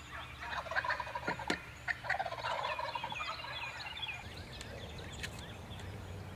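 Wild turkey gobbling: two rattling gobbles, the first about half a second in and the second about two seconds in, with small birds chirping in the background.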